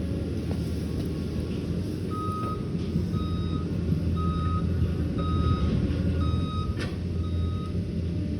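Liebherr PR 744 crawler dozer's diesel engine running with a steady low rumble while its reversing alarm beeps six times, about once a second, starting about two seconds in. A single sharp clank sounds near the end.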